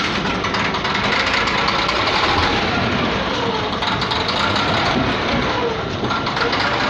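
Caterpillar bulldozer's diesel engine running steadily.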